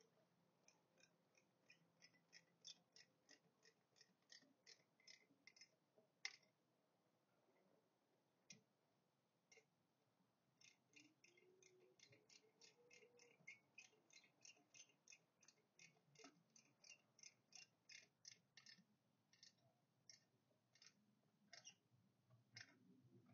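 Faint runs of small sharp clicks, about three or four a second, with a pause in the middle, from a tool tightening the screws on a roof-rack mount.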